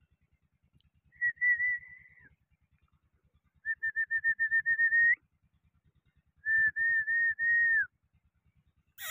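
Three high whistled phrases, each a second or so long and held near one pitch with a fast flutter; the middle one is broken into quick even pulses. A short, sharp falling whistle comes right at the end.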